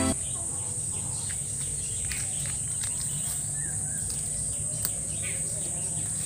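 Steady, high-pitched chorus of insects chirring in a garden, with a low steady rumble underneath and a few faint clicks.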